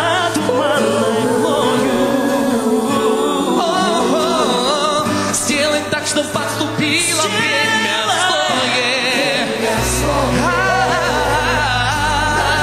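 Gospel-style song performed live: a man singing a wavering melody over the band's backing music. A heavy bass comes in about ten seconds in.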